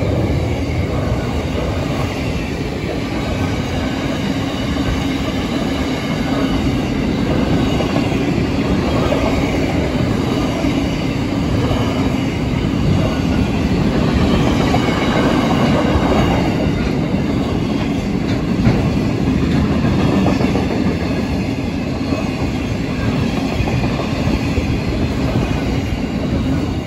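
Freight train wagons loaded with steel rolling steadily past on the track, a continuous noise of steel wheels running on the rail.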